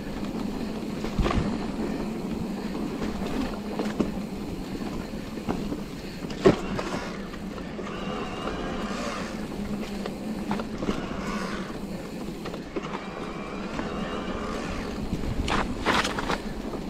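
Electric mountain bike being ridden along a leaf-covered dirt trail: steady tyre and riding noise with a constant low hum. Sharp knocks and rattles come as the bike hits bumps, the loudest about two-thirds of the way through and a few more near the end.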